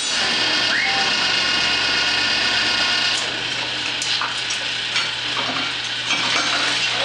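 Steady roar of foundry equipment, a furnace burner and a ventilation fan running together. A low rumble drops out about three seconds in and the noise eases slightly, with a few small clinks near the end.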